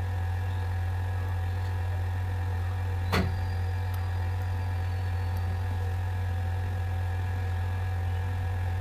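Steady low electrical hum, with a single brief click about three seconds in.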